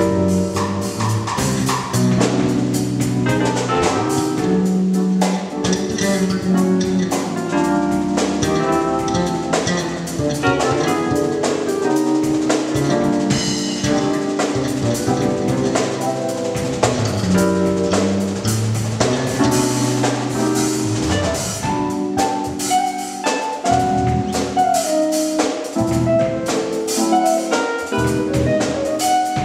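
Band playing a gospel groove: a drum kit with snare, rimshots and bass drum, over sustained bass and keyboard notes.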